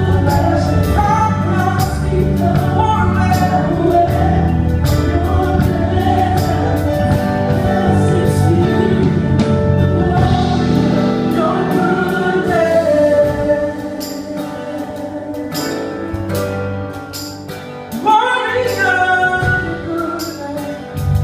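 Live gospel worship music: several singers backed by a band, the sound growing softer about two-thirds of the way through, then swelling back up near the end.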